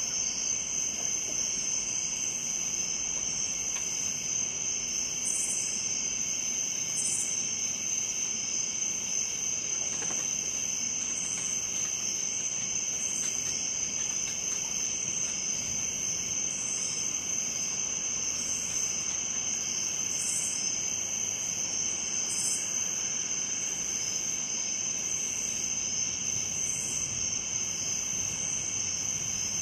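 Chorus of crickets and other night insects: a steady high-pitched trill, with a regular pulsing chirp above it.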